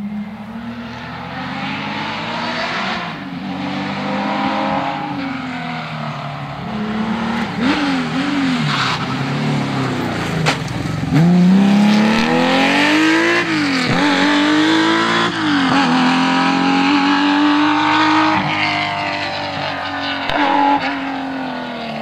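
Air-cooled flat-six of a classic Porsche 911 rally car accelerating hard, its pitch climbing and dropping back at several quick gear changes. It is loudest about halfway through as the car passes, then eases off.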